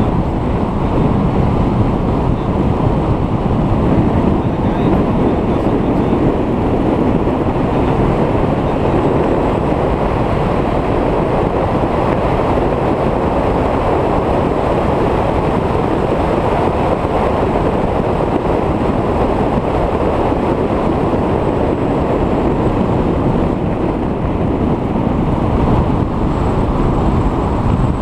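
1985 Porsche 911's air-cooled flat-six running at track speed under a loud, steady rush of wind on the microphone.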